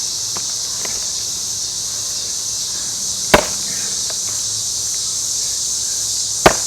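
Two sharp axe blows into a Scots pine log, about three seconds apart.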